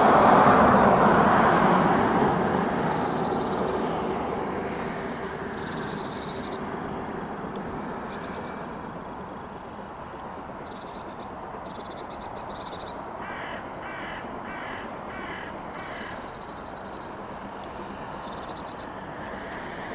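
A crow cawing: a run of about five quick caws roughly two-thirds of the way through, with short high bird chirps scattered throughout. Underneath, a steady rushing noise from the approaching steam locomotive, loudest in the first couple of seconds and then fading.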